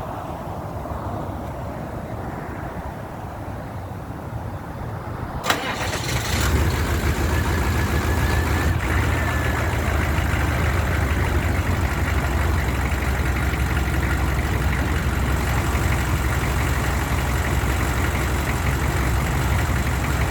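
A 1994 Chevy C3500 HD's 6.5 L turbo diesel V8 is started warm. After a sharp click about five and a half seconds in, it cranks briefly and catches. It runs kind of rough for the first few seconds, then smooths out into a steady idle. This warm start is quick, unlike the truck's cold-morning hard starts.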